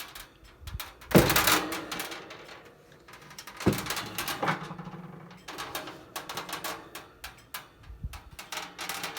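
Clatter of a 1966-67 GE Model W22 box fan's metal cabinet being handled and turned over: scattered clicks and knocks, with a sharp thump about a second in and two more a few seconds later.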